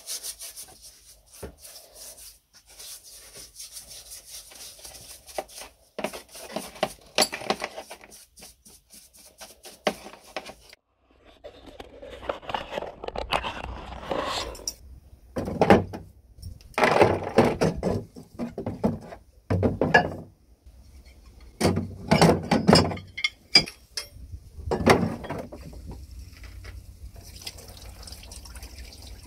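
A stiff brush scrubbing the rusty metal casing of an antique seed planter in quick repeated strokes. Then about half a dozen loud, short bursts of noise a second or two apart. Near the end, a steady hiss of water from a garden hose pouring over metal parts in a plastic crate.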